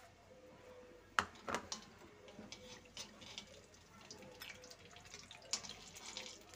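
Cumin seeds sizzling and crackling in hot oil in a metal kadhai as they temper, a faint hiss with scattered sharp pops, and a metal spoon stirring in the pan.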